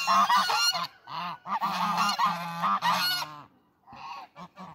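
A flock of domestic geese honking, many calls overlapping at once. The honking drops away about three and a half seconds in, and a few short honks follow near the end.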